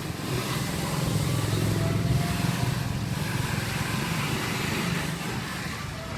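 A motor vehicle engine running close by over street noise. It grows louder early on, is strongest for a couple of seconds, then eases off, as a vehicle passing.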